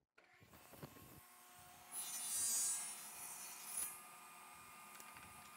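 Table saw with a thin-kerf blade running with a faint steady whine, cutting a kerf about 2 inches deep into the end of an English walnut board held in a tenoning jig. The cut is heard as a hissing rasp from about two seconds in until nearly four seconds in.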